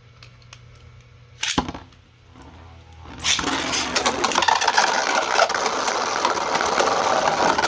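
3D-printed Beyblade spinning tops launched into a stadium, whirring and scraping against the floor and each other from about three seconds in. Before that, one sharp knock about a second and a half in.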